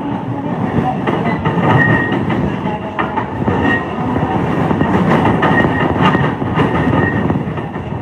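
Running noise inside a moving JR East E233 series 5000 electric commuter train: a steady rumble with the wheels clicking over rail joints at uneven intervals, and brief high-pitched tones now and then.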